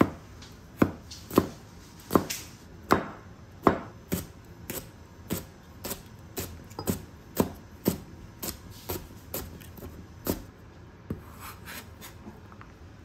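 Knife chopping vegetables on a plastic cutting board in sharp, regular strokes, about two a second. The strokes get lighter toward the end, and softer scraping follows as the chopped pieces are pushed off the board.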